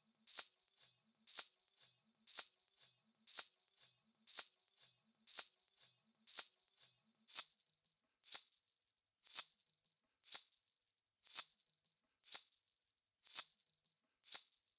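Payal anklet bells jingling in an even rhythm, about two jingles a second, alternating strong and weak. About halfway through they slow to single jingles a second apart with silence between, and stop near the end.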